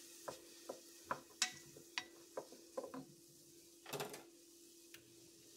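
Wooden spoon stirring diced onion in a stainless steel pot, tapping and scraping against the pot about every half second, with a longer scrape about four seconds in. Onion sizzling faintly in olive oil underneath.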